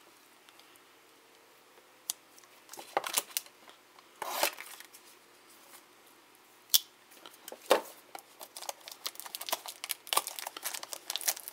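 A cardboard trading-card box being cut open with a pocket knife and its packs pulled out: scattered scrapes, tearing and clicks, with one sharp click about seven seconds in. Dense crinkling of a plastic card-pack wrapper follows over the last couple of seconds.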